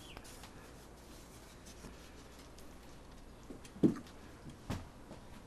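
Wooden side panel of an observation hive being set down, giving two dull knocks near the end, the first the louder, about a second apart. Otherwise quiet room tone.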